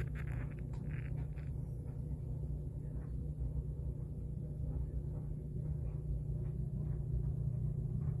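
Steady low background hum, with a few brief faint scrapes about the first second and a half in.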